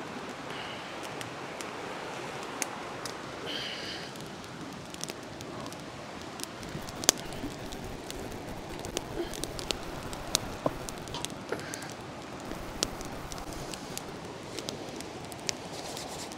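Small campfire of birch bark and damp sticks crackling, with irregular sharp pops over a steady hiss; the loudest pop comes about seven seconds in.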